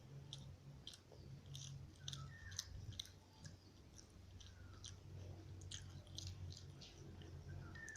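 Close-miked chewing of chicken rice: soft, wet mouth clicks and smacks at an irregular pace, faint overall.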